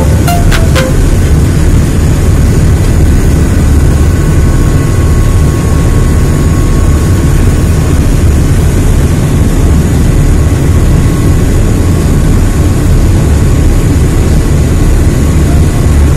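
Loud steady rumble of a high-speed river catamaran running at speed, heard from its open stern deck: engine noise mixed with wind and the rushing, churning wake, with a faint steady whine above it.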